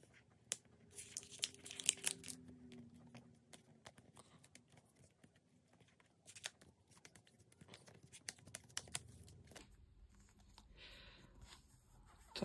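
Clear sticky tape being peeled and torn off a paper card sleeve, with crinkling paper and many sharp crackles, densest in the first few seconds and again in the middle, then a soft rustle of the card sleeve near the end.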